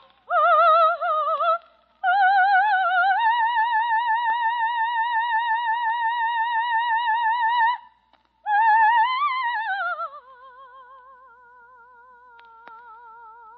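Operatic soprano singing wordless high notes with a wide vibrato: a couple of short phrases, then a long high note held for about five seconds, a brief rising and falling phrase, and a quieter, lower note held near the end. The sound is the narrow, dull-topped tone of an old radio recording.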